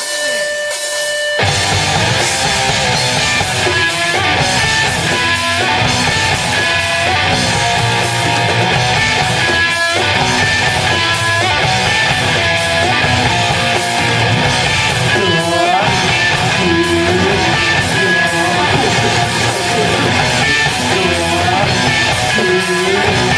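A rock band playing live with electric guitar and drums, the full band coming in loud about a second and a half in after a held guitar note.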